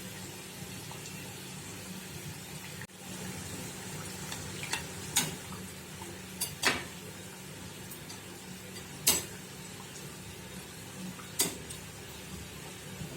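Samosas deep-frying in hot oil: a steady sizzle with a few sharp clicks scattered through it.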